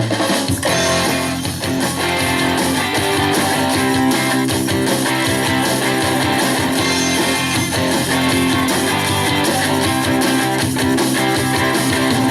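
Instrumental intro of a rock song, led by strummed guitars with bass, starting abruptly.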